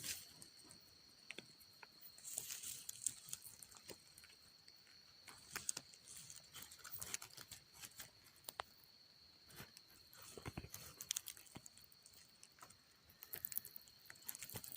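Faint rustling with scattered small clicks and snaps, coming in a few short clusters, over a steady thin high-pitched tone.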